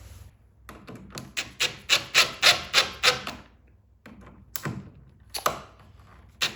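Quick back-and-forth rubbing strokes on wood, about three a second, in two runs with a short pause between.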